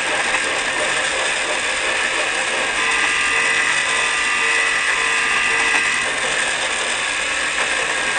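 Small electric motor and plastic gears of a Lionel alarm clock's toy train running steadily as the train circles its track. A steady higher tone joins for a few seconds in the middle.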